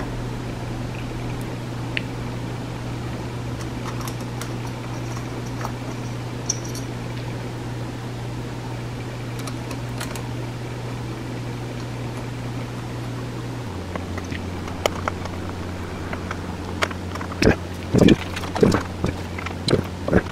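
Steady low hum that drops in pitch about two-thirds of the way through, under light clicks and taps from the metal and plastic parts of a chainsaw ignition module being handled and fitted by hand. The taps come thicker and louder near the end.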